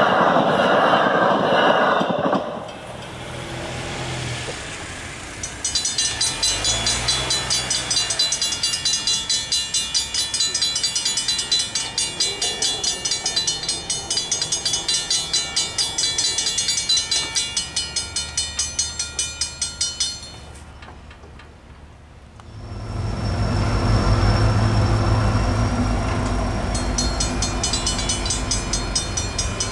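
Mechanical railroad crossing bell ringing with rapid, evenly spaced strokes at an active grade crossing, briefly stopping near two-thirds of the way through and starting again near the end. A train is heard passing at the start, and a low rumble sets in about two-thirds of the way through.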